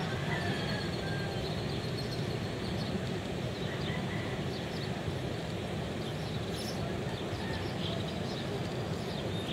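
Steady rushing roar of breaking ocean surf, with faint bird chirps now and then.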